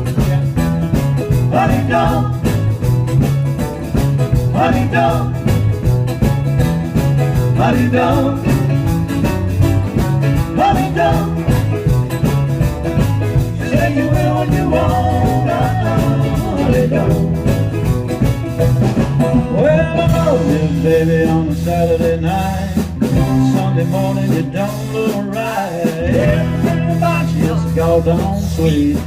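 Live band playing an upbeat rock and roll number, with a steady bass line that moves to longer held notes about two-thirds of the way through.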